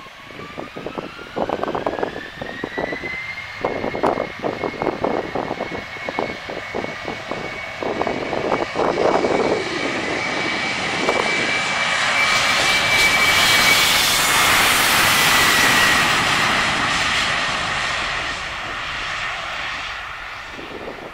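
Embraer 190's General Electric CF34 turbofans spooling up to take-off power: a whine climbs over the first few seconds, then holds steady as the jet accelerates down the runway. The sound is loudest about two-thirds of the way through as the jet passes, and the whine then drops in pitch as it moves away.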